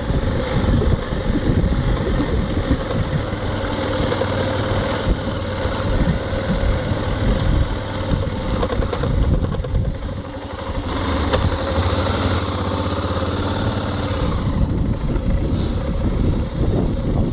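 Single-cylinder engine of a 2002 BMW F 650 GS Dakar motorcycle running steadily at low speed, heard from a phone mounted on the outside of the rider's helmet. The level dips briefly about ten seconds in, and the engine note shifts in pitch for a few seconds after that.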